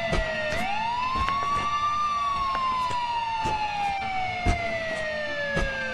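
A siren-like wailing tone with overtones, rising steeply for about a second and a half, then gliding slowly down for about four seconds. It sits over a run of sharp, irregular knocks or percussive hits.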